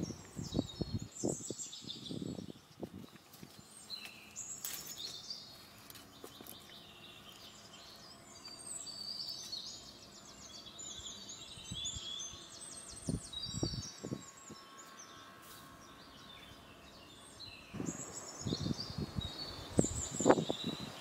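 Several small birds singing and chirping throughout, with short bouts of rustling and knocking, stronger near the start and again near the end.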